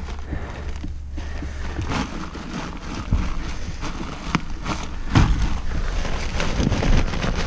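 Someone crawling across attic joists: scraping and rustling of loose insulation and foil duct wrap, with a few sharp knocks of knees or hands on the wood about three, four and five seconds in.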